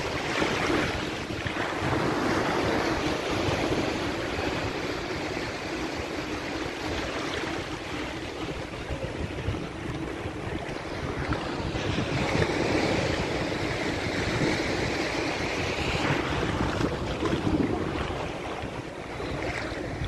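Shallow surf washing up onto the sand, swelling and easing in slow surges every few seconds, with wind rumbling on the microphone.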